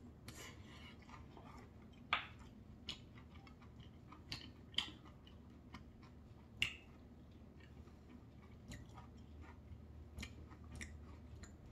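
Close-miked chewing of a mouthful of soft rice with soybean-paste stew, broken by scattered sharp clicks, the loudest about two seconds in, near the middle and about seven seconds in.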